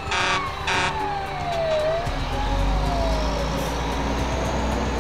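Fire engine sound effect: two short horn blasts, then a siren tone that slowly falls, rises and falls again, over a low engine rumble that grows louder after about two seconds.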